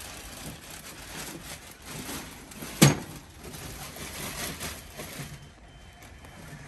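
Handling noise as a large printer wrapped in a plastic bag is shifted onto a metal hand truck: plastic rustling and light knocks, with one sharp knock about three seconds in.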